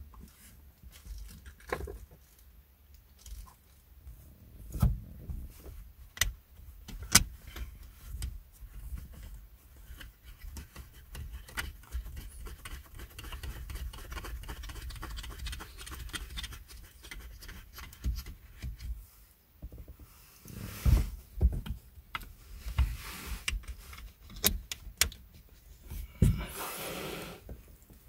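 Hands fitting a plastic headrest-mount bracket onto a car seat's headrest posts: a string of irregular plastic clicks and knocks with short spells of scraping, the sharpest knock about seven seconds in.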